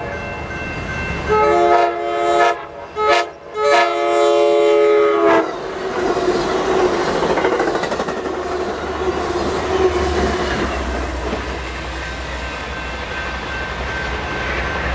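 Passenger train's multi-tone air horn sounding several blasts for the grade crossing, the last one held about two seconds, then the rumble and clickety-clack of the bilevel passenger cars rolling past.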